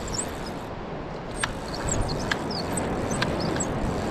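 Steady rushing noise of wind and surf on an open beach, with scattered short high chirps and three faint clicks.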